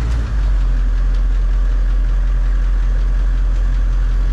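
Humvee's diesel V8 engine running steadily at low revs, heard from inside the cab.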